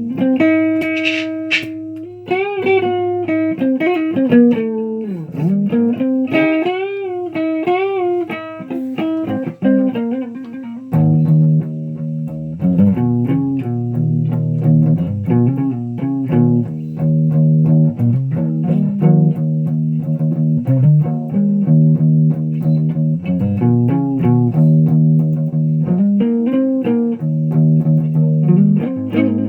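Electric guitar played solo, with many bent and wavering notes through the first ten seconds. Then about eleven seconds in it turns to a lower, fuller sound, a held low note under quick runs of notes.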